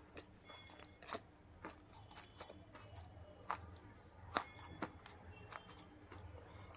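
Close-miked chewing of a crunchy pink dry bar: faint, irregular crisp crunches and clicks as the pieces break between the teeth.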